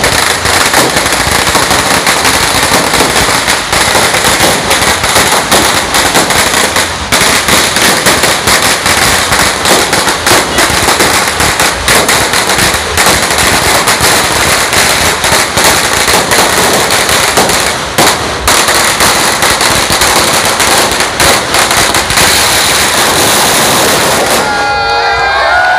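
Dense, rapid crackling and banging of New Year firecrackers and fireworks, hundreds of reports running together without a break. About 24 seconds in, the crackling stops abruptly.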